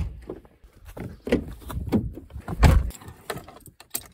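Clatter of someone getting into a car: a series of knocks and rustles, with a heavy thump like a car door shutting nearly three seconds in, and keys jangling.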